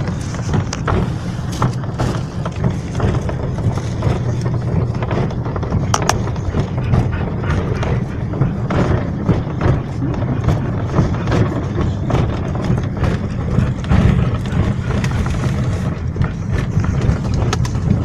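Car driving, heard from inside the cabin: a steady low engine and road rumble with frequent small knocks and rattles.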